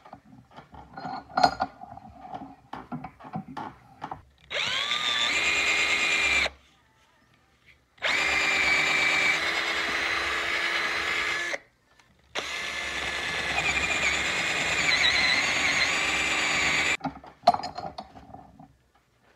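Handheld power drill boring into the end of a short wooden dowel clamped in a vise, run in three bursts of two to four seconds each, its pitch rising as it spins up at the first start. Light clicks and knocks of handling come before and after the drilling.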